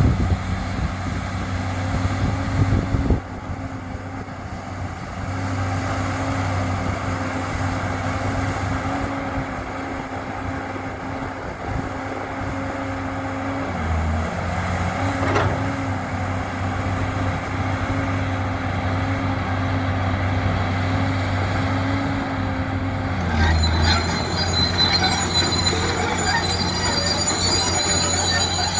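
New Holland E305 crawler excavator running, its diesel engine and hydraulics working steadily, with the engine note changing under load a few times. From about three-quarters of the way through, high-pitched squealing from the steel tracks comes in as the machine travels.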